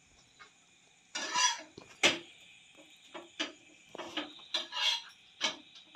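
Kitchen utensils clinking and scraping on a roti griddle, in irregular short strokes, with one sharper clank about two seconds in.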